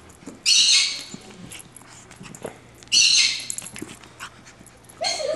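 Shih Tzu puppy making two short, harsh, breathy sounds about two and a half seconds apart.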